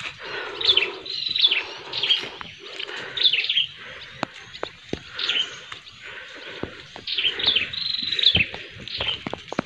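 Bird calls: clusters of two to four quick chirps, each falling in pitch, about once a second, with scattered light clicks and knocks between them.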